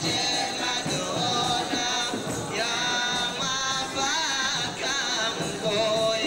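Men's voices singing together in a traditional Comorian song, amid a dense crowd.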